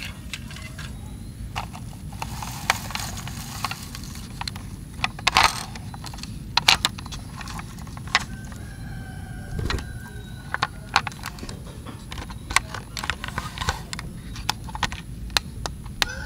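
Scattered sharp plastic clicks and knocks from a toy fire truck being handled and its parts moved, some in quick clusters, over a steady low rumble.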